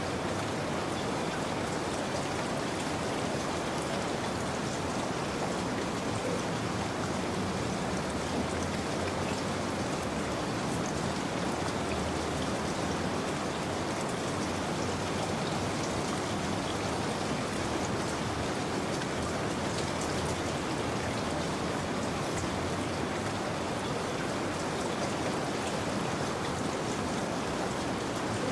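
Steady rain falling, with a fine patter of drops on a surface.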